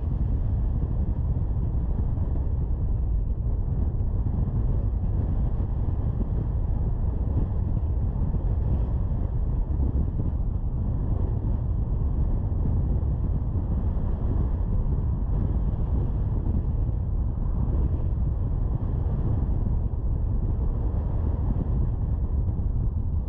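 Steady low rumble of a car driving along city streets: engine and tyre-on-road noise, with some wind on the microphone.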